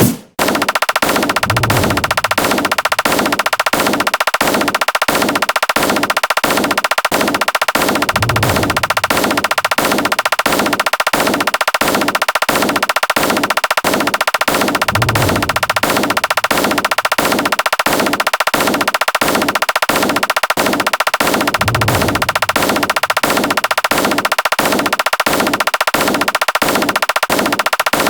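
A rapid, unbroken stream of repeated sound-effect hits, about two or three strong strokes a second with faster clatter between, machine-gun-like, with a short low hum returning about every seven seconds.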